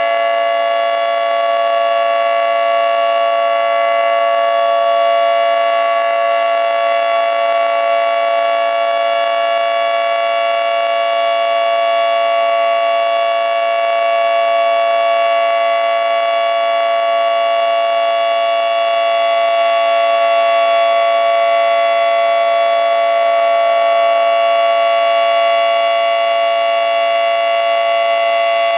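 Federal Signal 2T22 two-tone electromechanical warning siren sounding a steady alert during a test: a loud, held two-note chord that keeps the same pitch without rising or falling.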